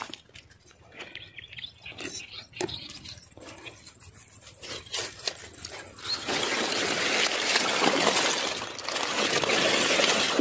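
Scattered faint ticks for about six seconds, then loud, continuous sloshing and splashing of water as someone wades in among water lilies.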